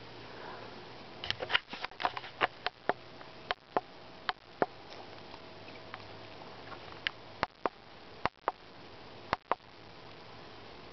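Siberian husky sniffing close up at the camera: an irregular string of short sniffs and sharp clicks, loudest and most frequent between about one and three seconds in, then sparser until near the end.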